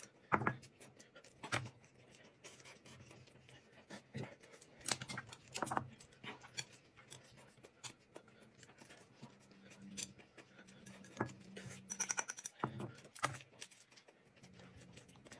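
Close-up eating sounds: chewing and biting into rolled thin wheat pancake wraps, with scattered short clicks of chopsticks against plates and bowls.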